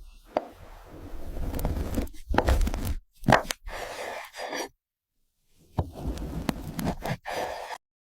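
Close-up sounds of a soft chocolate cake being cut into and handled: crunching and scraping with sharp clicks, in short bursts broken by a few abrupt silent gaps.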